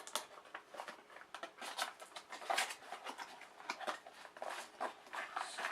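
Handling noise: irregular clicks, taps and rustles as an object is turned over and handled by hand.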